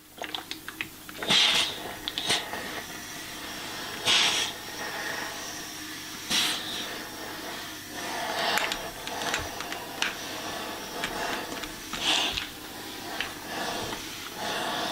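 Steam iron in use: irregular bursts of steam hiss every few seconds over a steady background hiss, with small clicks and knocks between them.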